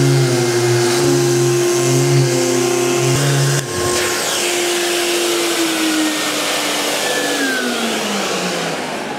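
Electric sander with a vacuum dust extractor hooked to it, running steadily as it sands joint filler on plasterboard. About three and a half seconds in it is switched off, and the motor whine falls steadily in pitch as it spins down.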